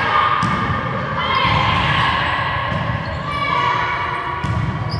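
Volleyball rally in a large gym hall: the ball is struck sharply a few times, with players' voices calling out over the play.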